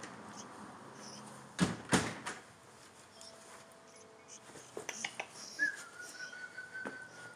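Two sharp thumps close together, then a few light clicks, and near the end a dog's thin, high whine held steady for about two seconds.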